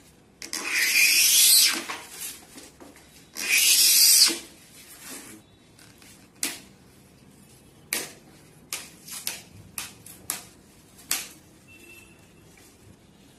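Two long scraping strokes of a hand cutter drawn along a wooden board, each about a second, followed by a scatter of short sharp clicks and taps.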